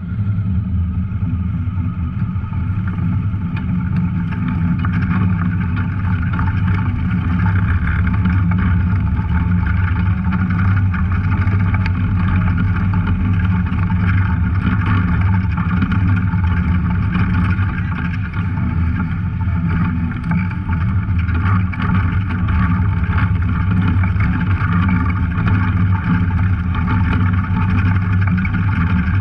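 Off-road vehicle's engine running steadily as it drives along the trail, with a dip in level about eighteen and twenty seconds in.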